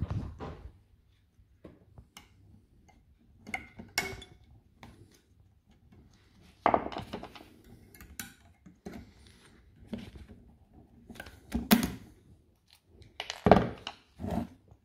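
Screwdriver and pliers prying and tearing the nickel strips off the cells of a DeWalt Flexvolt battery pack: irregular metallic clicks, scrapes and snaps, with a few louder knocks, the loudest near the end.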